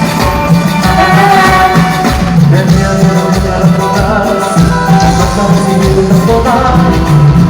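Band playing a Latin dance tune at a sound check, with a pulsing bass line, a melody held above it and percussion ticking steadily.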